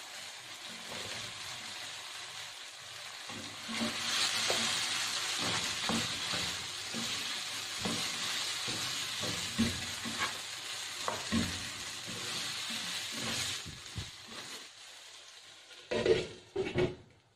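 Diced potatoes sizzling as they fry in oil and masala in a non-stick pan, with a spatula stirring and scraping through them in short knocks; the sizzle grows louder a few seconds in. Near the end a glass lid clatters onto the pan in a few loud knocks.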